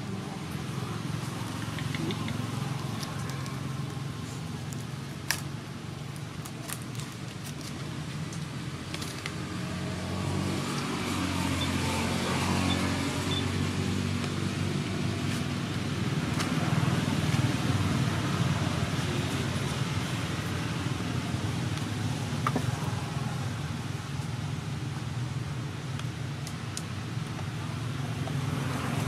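Low, steady engine drone that swells louder about ten seconds in and again a little later, with a few faint sharp clicks.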